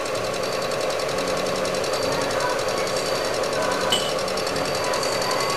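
Bridgeport milling machine resurfacing the gasket face of a single-cylinder motorcycle cylinder head: its spinning disc cutter makes a steady mechanical cutting noise with a fast, even rhythm.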